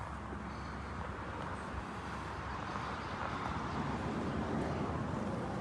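Steady low rumble and hiss of background noise, swelling slightly about three to four seconds in.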